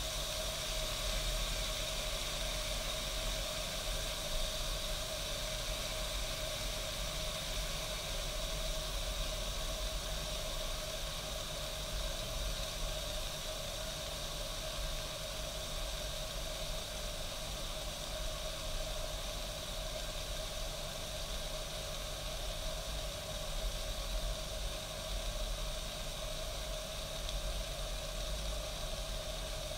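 East German Kaffee Boy K500 coffee machine brewing: a steady hiss of steam and boiling water over a low rumble.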